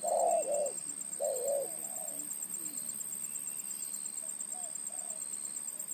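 Spotted dove (terkukur) cooing, a deep-voiced bird giving a loud run of rolling coos in the first two seconds. Fainter coos follow about four seconds in. This is the dove's territorial cooing when it faces a rival.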